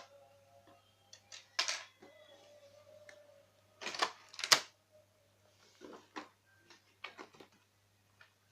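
Handling noise: a series of clicks and short rustles, with a sharp click about four and a half seconds in.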